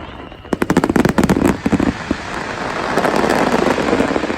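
Aerial fireworks crackling: a rapid volley of sharp pops about half a second in, followed by a sustained hiss-like crackle that swells and fades near the end.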